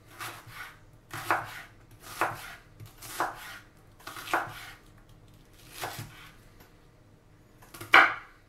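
Kitchen knife slicing an onion on a wooden cutting board: about seven separate cuts, roughly one a second, each a short stroke that ends on the board, the last one near the end the loudest.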